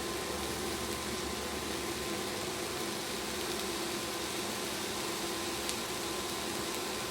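Onions, green peppers, potatoes and chopped turkey sizzling in an oiled skillet over medium-high heat: a steady, even hiss.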